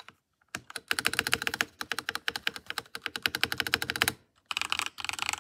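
Fast typing on the Langtu LT84 mechanical keyboard with its stock switches: a quick run of keystroke clacks for about three seconds, a brief pause, then more typing near the end.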